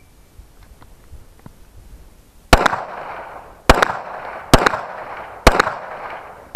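Five shots from a Smith & Wesson M&P 9mm pistol fired in a timed string after a draw from the holster, the first about two and a half seconds in and then roughly one a second, each followed by a short echo.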